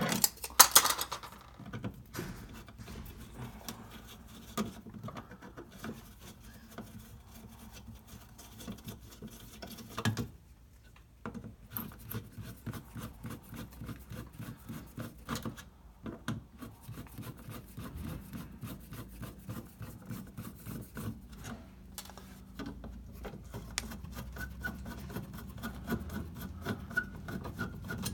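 Screwdriver turning the steel mounting screws of a wall receptacle, a long run of fine scratchy ticking and scraping as the screws back out. A few loud knocks near the start as the cover plate comes off.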